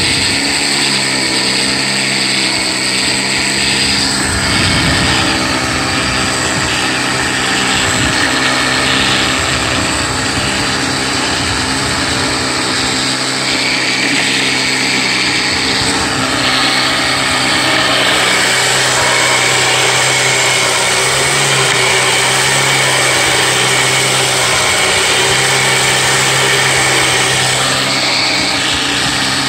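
8500 lb electric winch on a lawn-tractor wrecker boom reeling in its cable under load as it pulls an ATV, its motor running steadily along with the Craftsman lawn tractor's small engine.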